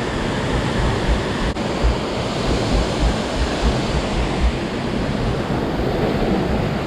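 Steady, loud rush of water falling over a waterfall, with uneven low buffeting of wind on the microphone.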